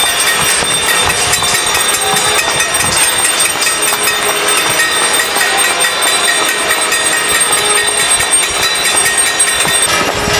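Many people across the neighbourhood clapping together, making a loud, dense, continuous clatter. Steady ringing tones run through it.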